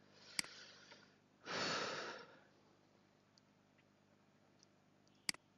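A person breathing into a close microphone: a faint breath in, then a louder breath out about a second and a half in. There is a sharp click near the start and another near the end.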